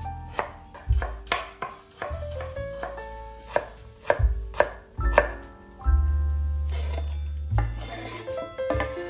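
Chef's knife chopping on a wooden cutting board in a run of sharp, irregularly spaced strokes, over background music.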